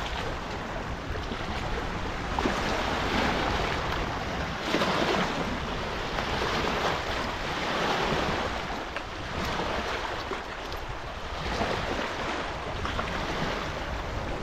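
Small waves washing against a lake shore, the rushing noise swelling and easing every second or two, with wind blowing on the microphone.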